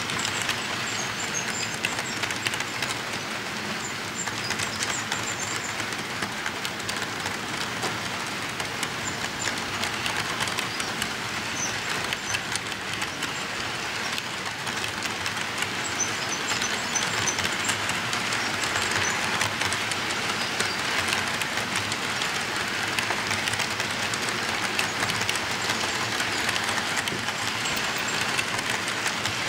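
HO-scale model freight cars rolling along model track: a steady rolling rush of small wheels on rails, laced with fine ticking.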